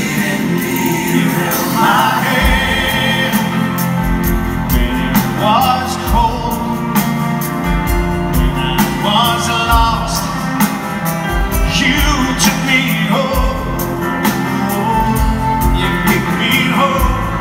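Live pop ballad: a male lead singer singing over a live band with drums, cymbals and bass, heard from the audience in a large arena.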